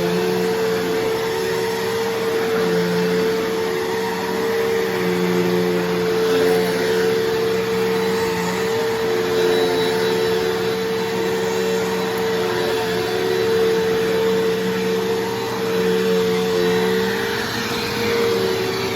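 Bissell CleanView Revolution Deluxe upright vacuum cleaner running steadily, a constant motor whine over rushing air, with a lower hum that comes and goes as it is pushed back and forth.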